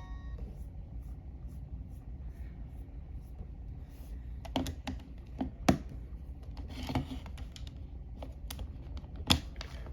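Irregular clicks and taps from the LG VX6000 cell phone's keypad being pressed as it is handled, a handful of them from about halfway through, over a low steady hum.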